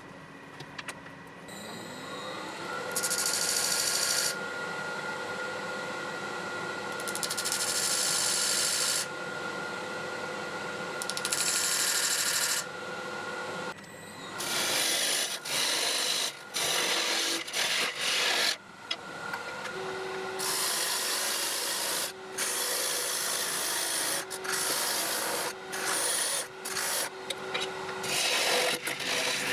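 Wood lathe spinning a yew blank: the motor's whine rises as it spins up about two seconds in, then holds steady. Over it come repeated bursts of hissing as a tool works the spinning wood, with a brief pause around halfway.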